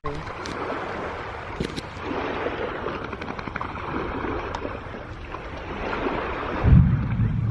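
Wind on the microphone over the steady wash of water at the shore, with a heavier gust near the end.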